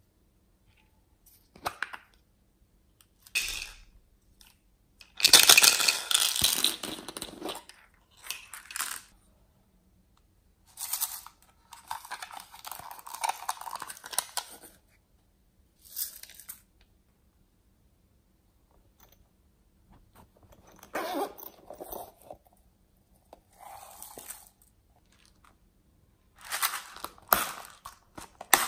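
Small plastic toy cases being handled and opened: clicks and snaps of plastic lids, with rustling and rattling of the confetti and beads inside. The sound comes in separate bursts with pauses between, the longest and loudest about five seconds in.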